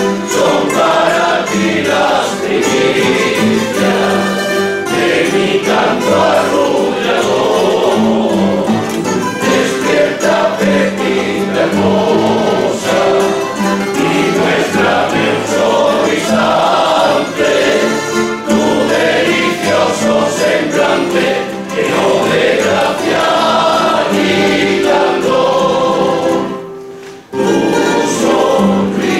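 A rondalla performing: a choir singing with a plucked-string accompaniment of guitars and bandurrias. The music breaks off for a moment near the end and then carries on.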